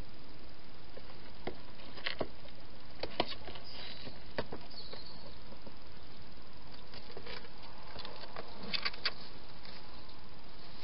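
Wild hedgehog moving about inside a plastic feeding box: scattered faint clicks and scrapes, a cluster in the first few seconds and a few more near the end, over a steady hiss.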